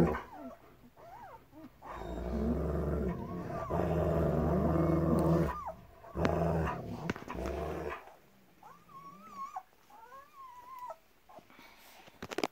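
Adult German Shepherd growling low in two long stretches, from about two seconds in to nearly eight seconds. After that come thin, high squeaks from week-old German Shepherd puppies.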